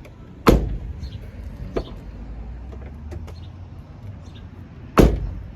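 2006 Chevrolet Silverado pickup door shut twice, about four and a half seconds apart, while a newly fitted exterior door handle is tested, with a lighter latch click between the two slams.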